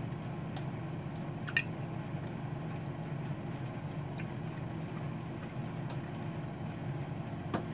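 A steady low hum of background noise, with a faint click about a second and a half in and another near the end.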